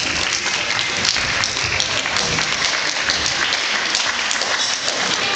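Spectators applauding: a steady clatter of many hands clapping.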